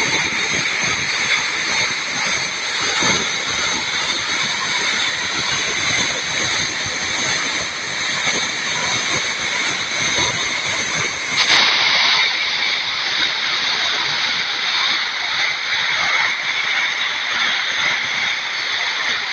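Steady, loud rush of fast-flowing floodwater and a swollen waterfall pouring over rocks. The noise shifts slightly about twelve seconds in.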